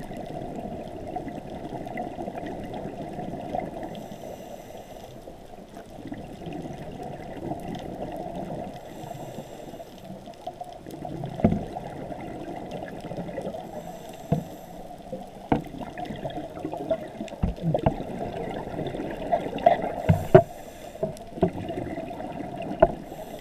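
Underwater sound of a scuba diver breathing: a short regulator hiss about every five seconds, with the bubbling and gurgling of exhaled air between. Several sharp knocks and clicks come in the second half.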